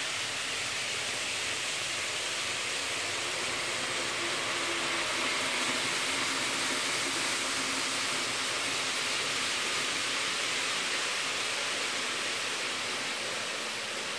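Model trains running on a layout: a steady hiss of rolling noise with a faint, wavering hum of the small train motors.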